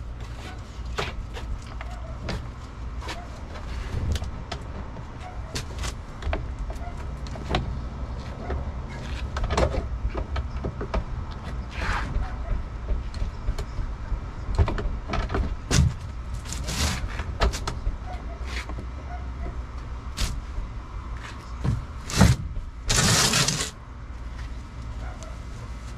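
Scattered clicks and knocks of car parts and hand tools being handled during reassembly, over a steady low hum. Two brief rasping bursts come about two-thirds of the way through and again near the end.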